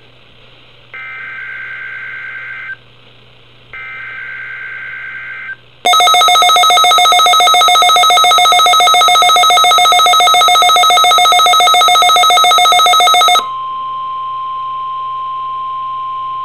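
NOAA Weather Radio Emergency Alert System test signal. First come two buzzy digital SAME header data bursts, each about two seconds long. Then a loud, rapidly pulsing alarm with many tones sounds for about seven seconds, and it gives way to a steady single-pitch warning alarm tone near 1 kHz.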